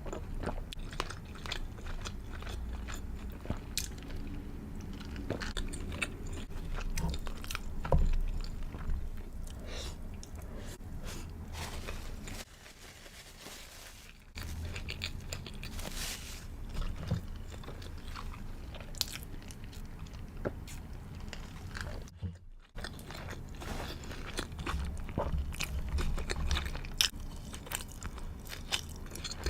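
Close-miked biting, crunching and chewing of a crispy fried chicken burger, full of short crackly crunches. It goes briefly quieter about halfway through.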